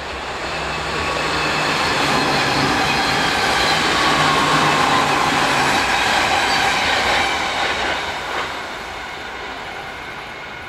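Passing Dutch NS ICM ('Koploper') electric multiple units, 4050 and 4249 coupled: the rumble of the train's wheels on the rails. It builds to its loudest about four to five seconds in and fades as the train moves away.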